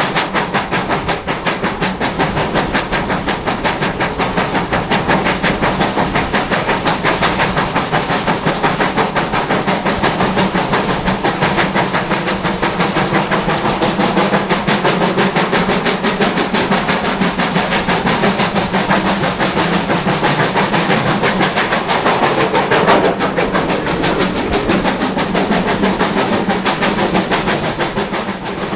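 GWR Manor class 4-6-0 steam locomotive 7822 Foxcote Manor, heard from the train behind it, working along with a steady rapid beat of its exhaust, mixed with the running noise of the carriages on the rails.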